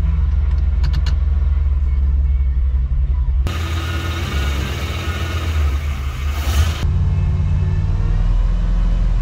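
A 1994 Chevy 3500 HD tow truck's big-block V8 running at a steady idle, heard from inside the cab. For a few seconds in the middle it is heard from outside the truck, with more hiss over it.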